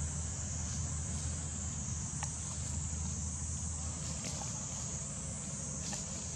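Outdoor ambience: a steady high insect drone over a low rumble, with a few faint clicks.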